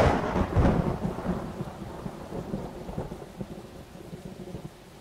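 A thunderclap breaks suddenly and rumbles away over a few seconds, over steady rainfall.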